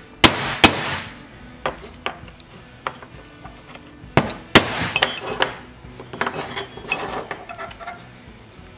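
Screwdriver struck with a hammer to tap a rubber oil seal down into its bore in a cast-iron engine bearing plate. Sharp metallic taps come in pairs: a loud pair just after the start, another about four seconds in, with lighter taps between.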